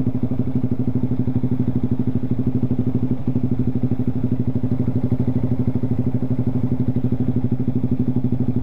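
Motorcycle engine idling steadily at a standstill, with a fast, even pulse and no revving.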